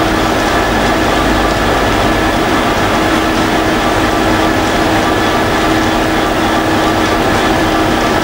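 High Speed Train (InterCity 125) coaches running past on the line at speed, a steady, even train noise with a constant hum.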